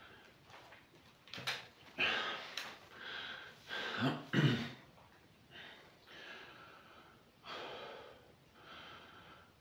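A man breathing audibly while resting between sets of weight training: a series of separate breaths in and out, one with a faint voiced sigh about four seconds in.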